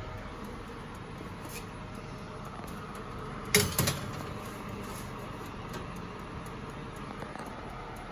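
Metal baking tray clattering against the wire oven rack as it is slid in, one short loud clatter a little over three seconds in, over a steady low hum.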